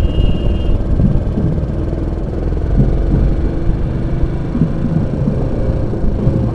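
Motorcycle engine running, heard from a camera mounted by the front wheel: a steady low rumble. A short high-pitched tone sounds in the first second.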